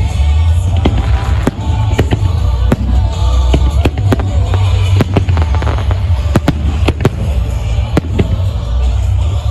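Aerial firework shells bursting in a rapid barrage, about two sharp bangs a second over a continuous low rumble.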